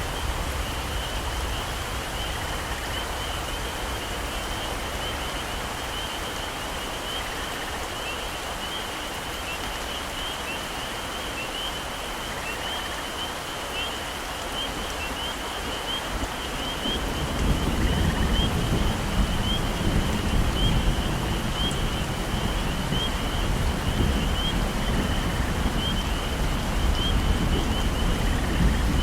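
Steady heavy rain falling on tropical forest, with a continuous high chirping chorus of forest animals running through it. A low rumble sets in a little over halfway through and continues, making the whole louder.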